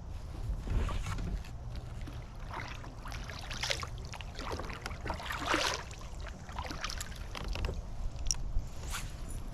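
Kayak paddle strokes swishing through the water, several strokes in a row over a steady low rumble.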